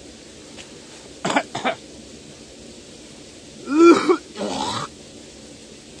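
A man coughing in thick smoke from burning leaves: two short coughs a little over a second in, then a louder, voiced cough about four seconds in, followed by a rasping throat-clear.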